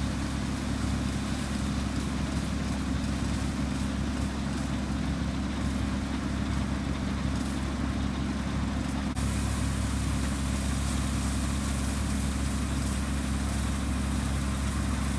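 A rice harvesting machine's engine running steadily, a constant low hum, while it is fed with rice stalks cut by hand with sickles for threshing. The sound steps up slightly about nine seconds in.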